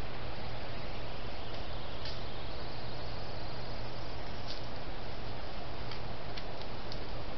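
Trail camera's microphone recording at night: a steady hiss with a low hum under it, and a few faint ticks scattered through.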